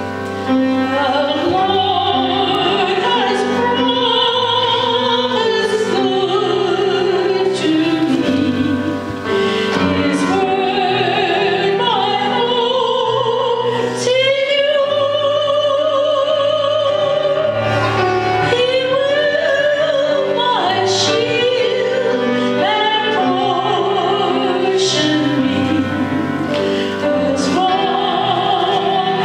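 Music: a singer with wavering vibrato over held instrumental accompaniment, in a church service.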